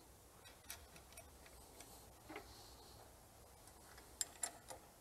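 Faint, scattered small clicks of a steel bolt and flat washer being handled and fitted against a poly wear pad on a steel hutch hanger, with a few sharper clicks about four seconds in.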